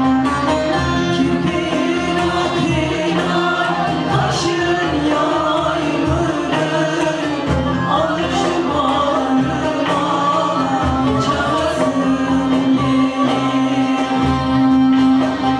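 Live Turkish folk song (türkü) from the Sivas region: singing with choir voices over bağlama (long-necked lute) and other instruments, a steady low note held under much of it.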